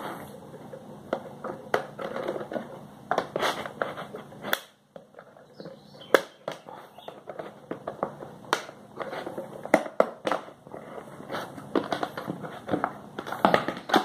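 Screwdriver prying at the plastic motor housing of a wall fan, with irregular clicks, snaps and scrapes of plastic as the motor is worked free of its base. A short quiet gap comes about five seconds in.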